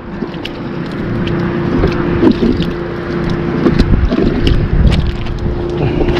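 An engine running steadily with a low rumble, with wind on the microphone and scattered light clicks and knocks.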